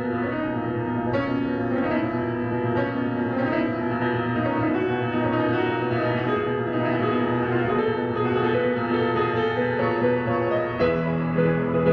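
A fully overhauled Steinway & Sons S-155 grand piano being played: a slow passage of held chords, with a lower note coming in near the end.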